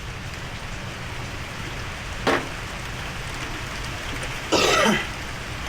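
A man clearing his throat, briefly about two seconds in and louder near the end, over a steady background hiss.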